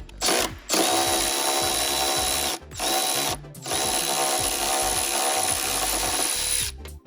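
Power drill spinning out bolts in several runs: a brief burst, then a run of about two seconds, a short one, and a final run of about three seconds that stops near the end.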